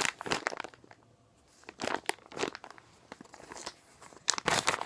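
Crinkling and rustling in short irregular bursts as handmade squishy toys are handled, with a louder cluster of rustles near the end.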